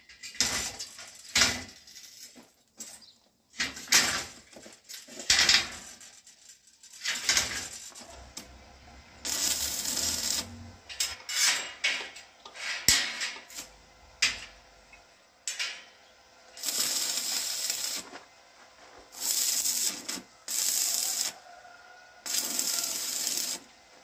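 Steel bars of an iron window grille clinking and knocking as they are set in place. From about nine seconds in come five short bursts of electric arc-welding crackle, each about a second long, as the bars are tack-welded.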